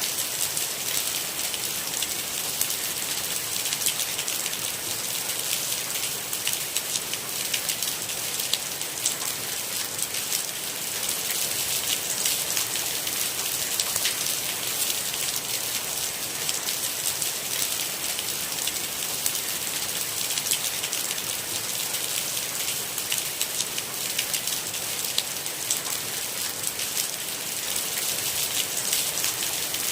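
Steady rain falling: an even hiss with many individual drops ticking through it.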